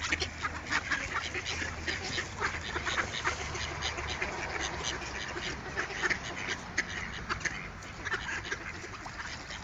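A flock of mallard ducks quacking: many short calls overlapping one another without a break.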